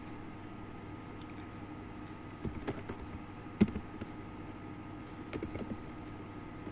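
Computer keyboard keystrokes, a few scattered taps with pauses between them, one sharper than the rest midway, over a steady low hum.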